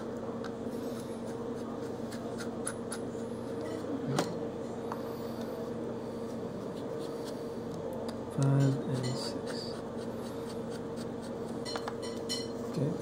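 Small screwdriver tightening laptop CPU heatsink screws one after another in numbered order: faint scratching and light metal clicks, over a steady low hum.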